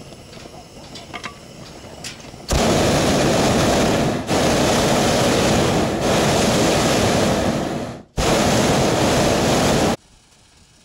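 Hot air balloon's propane burner firing: a loud, steady blast that starts suddenly a couple of seconds in, stops for an instant and fires again, then cuts off shortly before the end.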